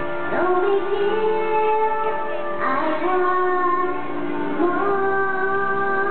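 A young girl singing solo into a handheld microphone, holding long notes with short slides between them.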